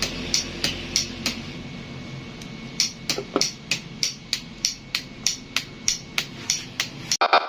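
Starter relay wired into a turn-signal flasher circuit, clicking sharply and evenly about three times a second as the signal light flashes, with a pause of about a second early in the sequence.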